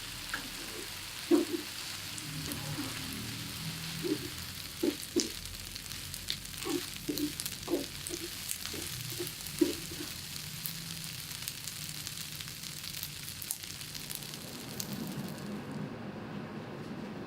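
Food sizzling steadily on an electric hot plate, with a run of short knocks in the first ten seconds or so. The hiss drops away near the end, leaving a low hum.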